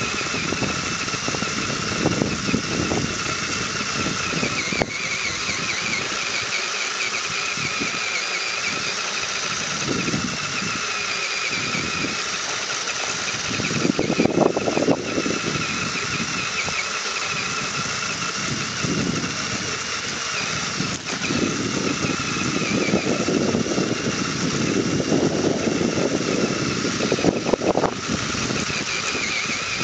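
HPI radio-controlled rock crawler's electric motor and gearbox whining steadily as it drives over grass, heard up close from a camera on the crawler. The whine wavers with the throttle, and the running gets louder and rougher about halfway and again through the last third.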